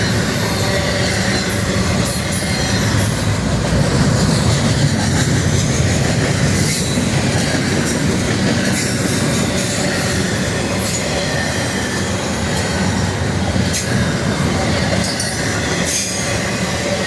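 Railroad cars rolling past on the track: a steady rumble with wheels clicking over the rail joints and occasional faint high wheel squeal.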